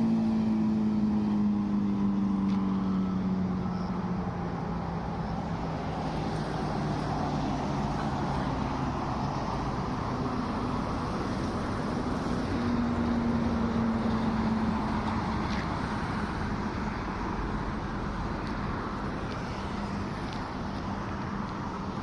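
A passing vehicle: an engine hum that falls slowly in pitch over the first ten seconds, a second fainter hum a little later, over a steady rumble of traffic or wind noise.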